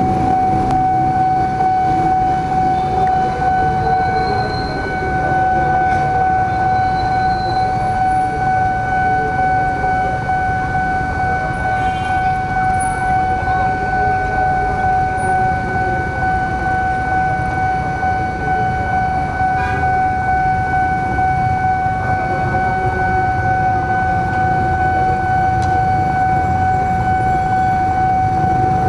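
Railway level-crossing warning alarm sounding one steady, unbroken high tone, with the engines of motorbikes and cars idling underneath as they wait at the closed crossing.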